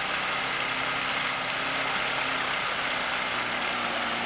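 Outboard motor on a small fishing boat running steadily at trolling speed: a low steady hum under a broad hiss.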